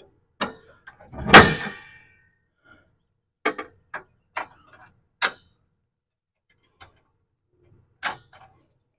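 Metal clanks and clicks from a weight distribution hitch's spring bar, chain and bracket being set by hand: one loud clank with a short ring about a second in, then several sharp clicks spread over the following seconds.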